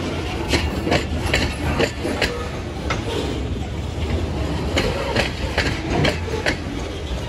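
Freight train of covered hopper cars rolling past, a steady low rumble with the wheels clicking sharply over rail joints at uneven intervals.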